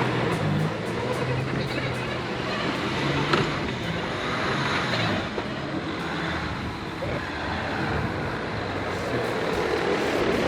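Jeep Gladiator's 3.0 L EcoDiesel V6 running steadily as the truck drives tight full-lock circles in four-wheel drive with turn assist engaged, with tyre noise over dirt throughout.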